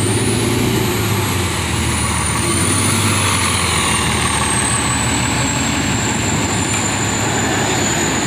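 Vehicle running with a steady low hum and a thin high whine that rises in pitch about a second in, then slowly eases back down.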